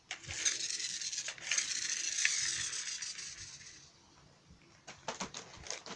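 Small plastic toy vehicles being handled: a few seconds of plastic rubbing and scraping that fades out, then a few light clicks near the end.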